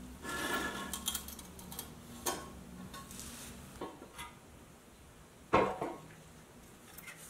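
Pressed-steel toy truck cab and its parts handled with gloved hands: scraping and light metal clinks, then a sharper knock about five and a half seconds in.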